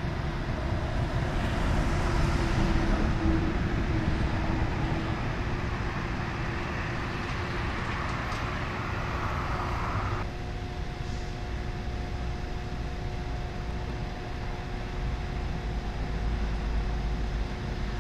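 Freeway traffic noise: a steady low rumble and rush of vehicles, with a steady hum underneath. The sound changes abruptly about ten seconds in.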